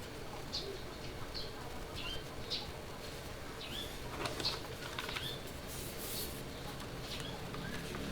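Birds chirping: short, faint chirps every half second or so, with a few soft clicks near the middle.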